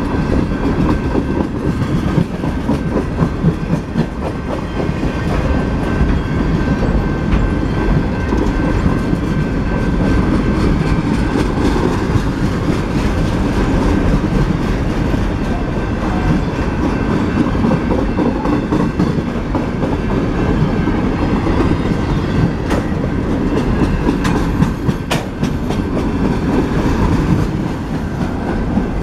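Freight train of container flatcars rolling past close by: a steady, loud rumble of steel wheels on rail with the clickety-clack of wheels crossing rail joints.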